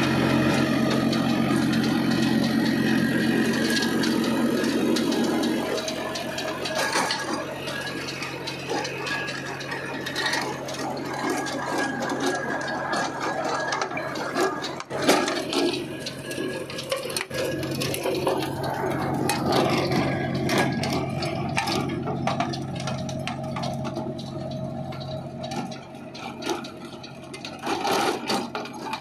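VST Shakti compact diesel tractor engine running steadily under load while its gear-drive rotavator churns dry soil, the tines and housing rattling and scraping with frequent irregular clicks.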